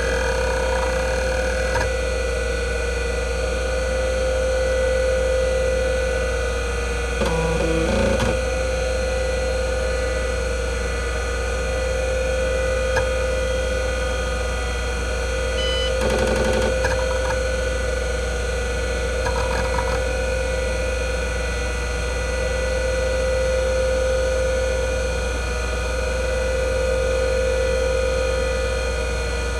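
Single-platter IBM WDA-L42 40MB hard drive spinning with a steady whine over a low hum. A few short clusters of head-seek clicks come about eight seconds in, again around sixteen seconds and near twenty seconds, as the drive is read during an MS-DOS boot.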